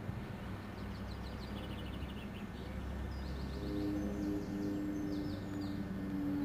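Small birds chirping in quick runs of short falling notes over a low steady rumble, with a steady humming tone joining about three and a half seconds in.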